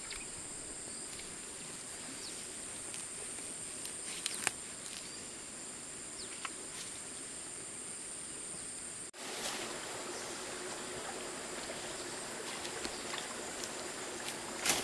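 Forest ambience: a steady high insect drone over a soft even hiss, with a few light clicks and snaps. The sound drops out briefly about nine seconds in, then resumes the same.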